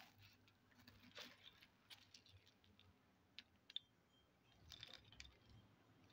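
Faint scattered clicks and clinks of hard roasted edible-clay chunks knocking against each other as a hand sorts through them, with a small cluster of clicks about five seconds in.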